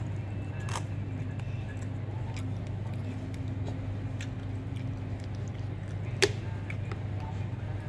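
Steady low hum of office air conditioning, under scattered light clicks of a plastic fork, a takeaway container and a plastic water bottle being handled. One sharp click stands out about six seconds in, as the bottle is raised to drink.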